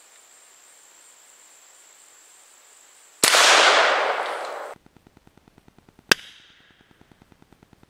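A single shot from a Rossi Circuit Judge revolving carbine firing a .410 000 buckshot shell: a sudden loud blast about three seconds in that trails off over a second and a half. About three seconds later comes one shorter, sharper crack.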